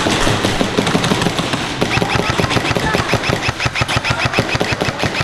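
Airsoft guns firing fast full-auto bursts, several overlapping into a dense rattle of sharp clicks.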